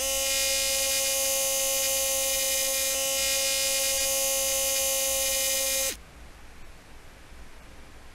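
Electric drill running at a steady speed with a high whine and hiss. It stops abruptly about six seconds in.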